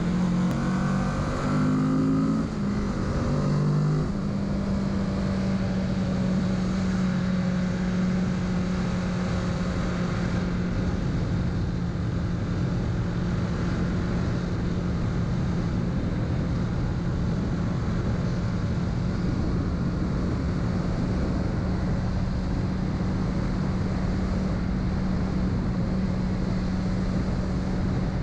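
2021 Kawasaki Z650's parallel-twin engine running under way. Its pitch changes in steps for the first four seconds or so, then holds one steady note as the bike cruises.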